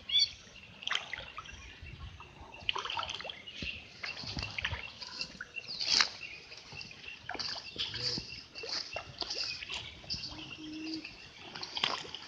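Small fish splashing and sloshing at the surface of a fish pond, many short splashes one after another, with birds chirping repeatedly in the background.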